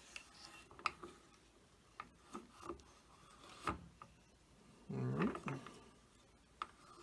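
Small metal clicks, knocks and rubbing as an AR-15 castle nut and receiver end plate are turned and handled by hand on the buffer tube, with a short low hum that rises in pitch about five seconds in.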